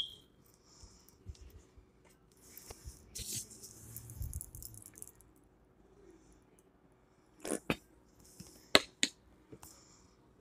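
Handling sounds at a meal table as a hot sauce bottle is squeezed over fries and put aside: a sharp click at the very start, rustling with a soft thump three to four seconds in, then several sharp clicks about seven to nine seconds in.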